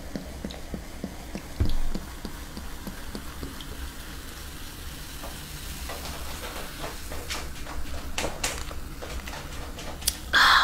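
Cola fizzing as it is poured from a plastic bottle into a glass mug: a steady crackling hiss of carbonation with small pops. A low thud comes under two seconds in, and a short louder sound near the end.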